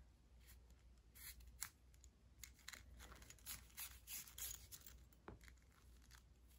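Faint scratchy rustling of yarn being drawn through wrapped yarn with a metal needle, a run of short scrapes in the middle.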